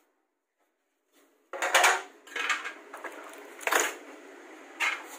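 After about a second and a half of silence, hard plastic copier cover panels clatter and knock several times as they are handled and fitted back onto the machine.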